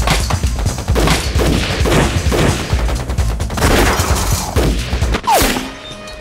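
A long burst of gunfire, many shots in quick succession, that stops about five seconds in. A short falling whine follows, and then it goes much quieter.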